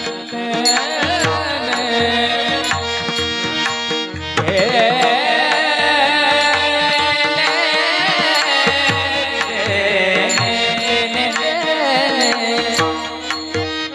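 A woman singing a Marathi devotional abhang in kirtan style, her voice wavering over steady harmonium-like held notes. Hand-drum strokes keep the beat.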